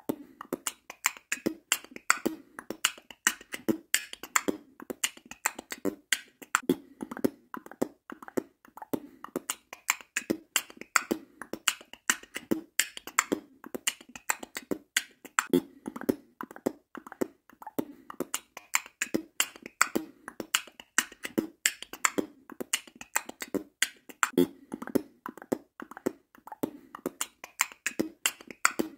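Percussive background music: a fast, steady beat of sharp clicks and low thumps.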